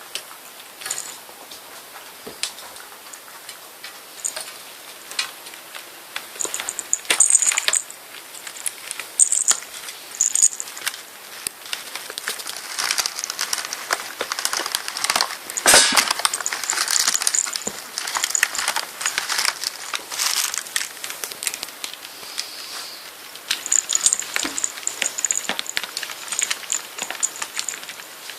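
Kittens at play: an irregular run of small clicks, taps and scrapes, with brief high metallic jingles like a bell toy being batted about, busiest in the middle.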